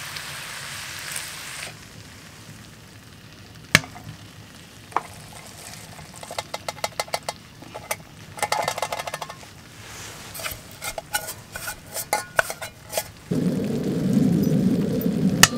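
Beef and vegetables frying in a cast-iron skillet, sizzling, while a wooden spatula stirs and scrapes against the pan in a run of clicks and scrapes. A louder low rushing noise sets in near the end.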